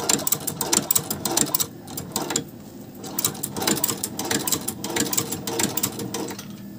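Sewing machine stitching through the fabric heel of a sneaker, running in short bursts of rapid needle clicks with a brief pause about two and a half seconds in, then stopping shortly before the end.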